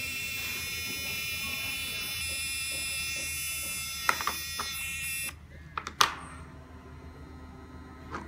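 CC308 wireless bug detector sounding its alarm: a steady, high electronic buzzing tone that signals a detected wireless signal. The tone cuts off suddenly about five seconds in. A few sharp clicks follow, the loudest about six seconds in.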